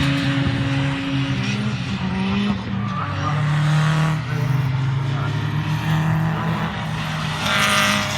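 Race car engines running hard, their pitch stepping up and down with throttle and gear changes, with a louder car passing about seven and a half seconds in.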